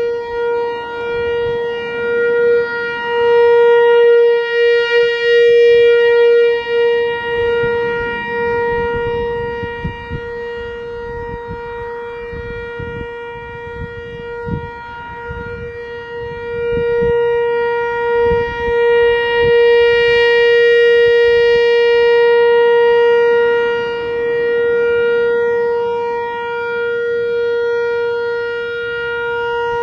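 Whelen WPS-4004 electronic outdoor warning siren on an analog controller, sounding the steady Alert tone of its test cycle: one unchanging pitch that swells and fades slowly in loudness.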